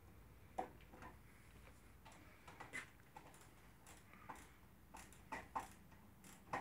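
Near silence broken by faint, irregularly spaced clicks and light knocks, about a dozen short ones.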